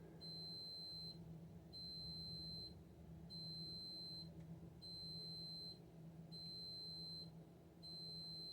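Electronic beeper of a home security system sounding a fault alert: six even, high-pitched beeps, each about a second long and repeating every second and a half, which signal that one of the security cameras is out. A low steady hum runs underneath.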